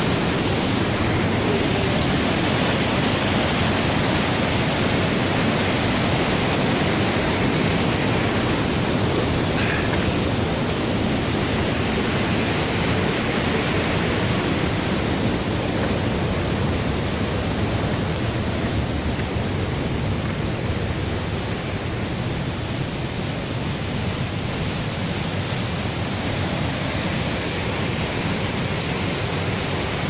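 A waterfall's falling water rushing, a steady even noise.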